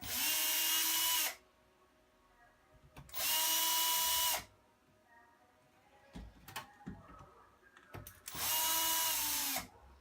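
Electric drill with a Phillips bit backing out small laptop screws: three short runs of the motor, each about a second long, whining up to speed and winding down, with small clicks between them as the bit is moved to the next screw.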